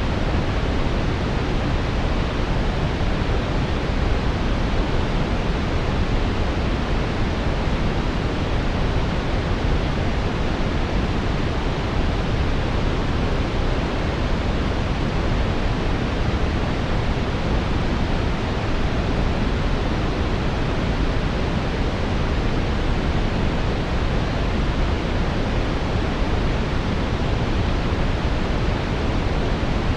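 Steady brown noise: an even, deep rushing hiss weighted toward the low end, unchanging throughout.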